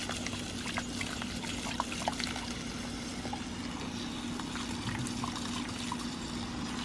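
Water from a garden hose pouring and trickling onto grass while a dog drinks at the stream, over a steady low hum.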